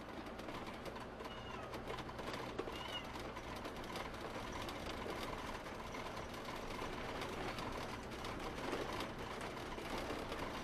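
Motorhome cab while creeping along a gravel track: a low, steady engine hum with the fine crackle of tyres on gravel. Two faint bird chirps come in the first few seconds.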